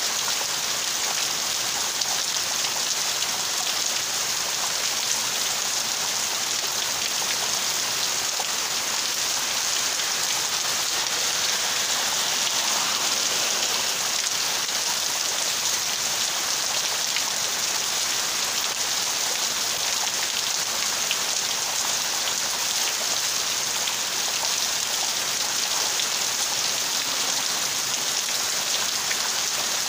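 Heavy rain pouring steadily onto palm fronds: an even hiss that never lets up.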